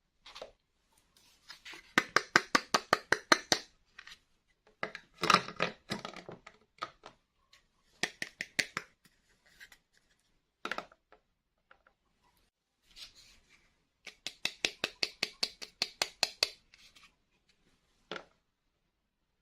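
Handling of plastic toys and their packaging: several runs of rapid, evenly spaced clicks, about eight a second, the longest about two seconds, with a few single clicks between.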